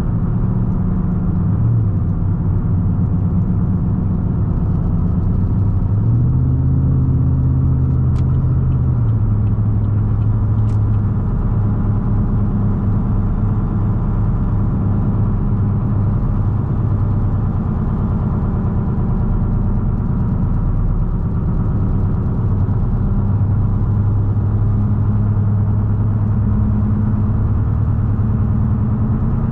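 The 2016 Chevrolet Silverado 2500HD's 6.0-litre Vortec V8 drones through its aftermarket exhaust, heard from inside the cab, over the hum of its worn, chopped tires on the road. About six seconds in the engine note steps up, then drops back a few seconds later.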